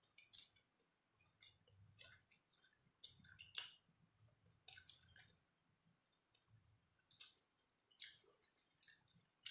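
Faint, open-mouthed chewing and lip-smacking of a person eating spicy fried rice and grilled tempeh, with scattered wet clicks. The loudest smacks come about three and a half seconds in and again around five seconds.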